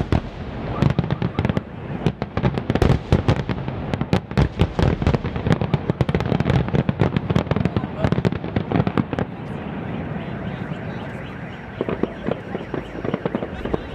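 A dense barrage of aerial firework shells bursting, many bangs and crackles overlapping. It thins out after about ten seconds to scattered pops and crackle.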